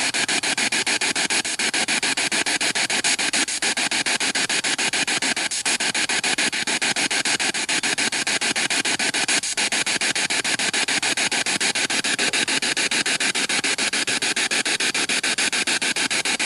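Spirit box radio sweeping through stations, played through a small Bluetooth speaker: a loud static hiss chopped into rapid, even pulses, several a second.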